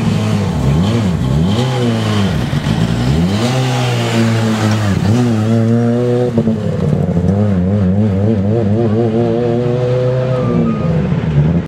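S2000 rally car's naturally aspirated four-cylinder engine running hard, its pitch climbing and dropping again and again as it revs up through the gears and lifts off; in the later seconds the revs waver quickly up and down.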